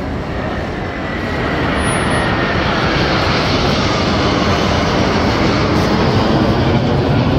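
A formation of T-50B supersonic jets, each with a single F404 turbofan, passes overhead. The jet noise grows louder through the pass, and a faint whine drops in pitch from about one and a half to four seconds in.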